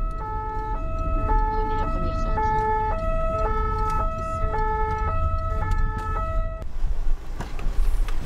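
French two-tone emergency siren of a SMUR car alternating between a high and a low note, changing about every half second, over the engine and road rumble inside the moving vehicle. The siren cuts off about two-thirds of the way in, and a few knocks follow.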